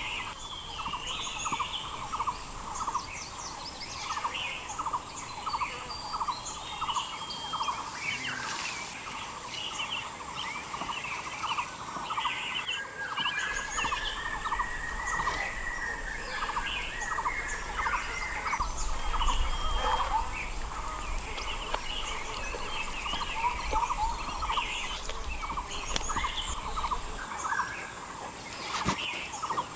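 Tropical forest ambience: birds calling and chirping over a steady, quickly pulsing insect chorus and a thin high insect whine. A low rumble runs through the middle stretch.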